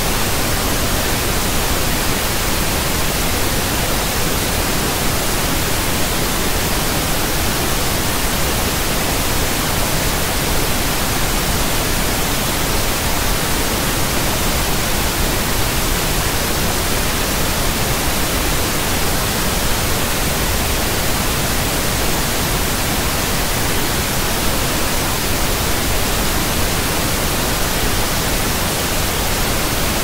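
Steady synthetic white noise: a loud, even hiss spread across all frequencies, unchanging throughout.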